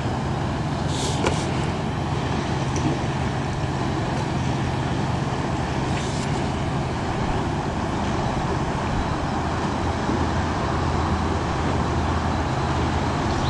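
Steady background noise: an even hiss with a low hum underneath, holding level throughout with no distinct events.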